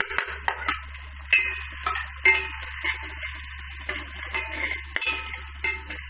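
Metal slotted spatula stirring diced carrots and peas in hot oil in an aluminium pot, with irregular clinks and scrapes of metal on metal over the sizzle of frying.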